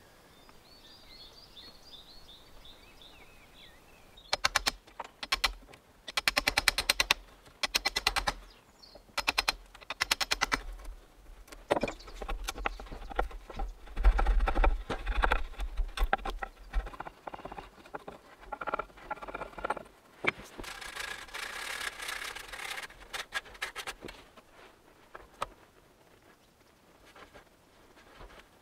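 Bird chirping a few times at the start, then repeated bursts of rapid clicking and rattling from hand work with tools and hardware while a weather station is installed.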